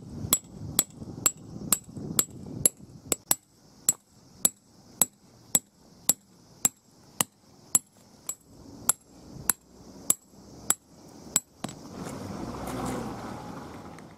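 Steel peg hammer striking a plastic tent peg in gravel, sharp blows about two a second with a short high ring. Near the end the blows stop and a gravelly scraping follows as the peg is worked out of the ground.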